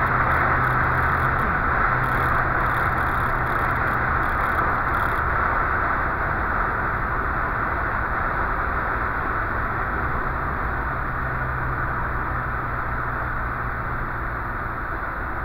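Volvo 144S engine running steadily at cruising speed, heard inside the cabin under heavy road and wind noise.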